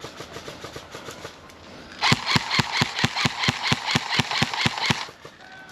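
Airsoft gun firing a rapid string of about a dozen loud, evenly spaced shots, roughly four a second, starting about two seconds in and stopping about three seconds later. A fainter, quicker run of shots comes in the first second.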